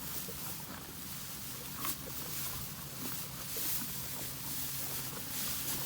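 Cattle pulling and chewing hay: a continuous crackle of crunching and rustling, with a sharper snap about two seconds in. A faint low steady hum lies underneath.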